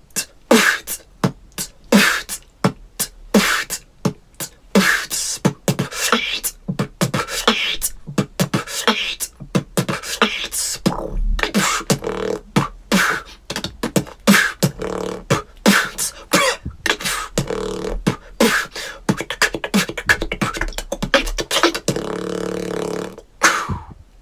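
A solo beatbox performance: one person's mouth and voice making kick, snare and hi-hat sounds in a fast, steady rhythm. A held pitched vocal note comes a little before the end.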